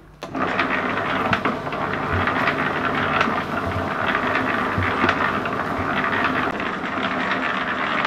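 Electric concrete mixer switched on about a third of a second in, then running steadily, its drum turning a wet load of oak sawdust and water.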